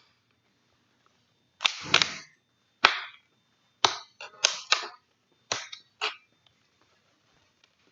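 Thin plastic water bottle cracking and crinkling as scissor points are pushed through its wall to poke and widen feeding holes. About eight sharp cracks come in a quick, uneven series over some four seconds.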